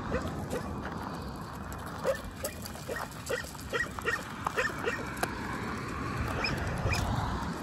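A dog whimpering and yipping in a string of short, high cries, some coming in quick runs, with a lull about five to six seconds in.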